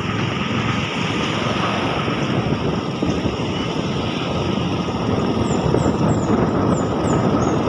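Steady running noise of a moving road vehicle: engine and wind rushing over the microphone. About five seconds in there is a quick run of six short, high, falling chirps.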